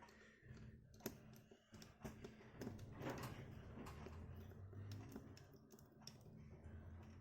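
Faint, scattered small clicks and taps of a precision screwdriver working the tiny screws on a Samsung Galaxy A90 5G's internal frame, with the screws and tools handled on the bench.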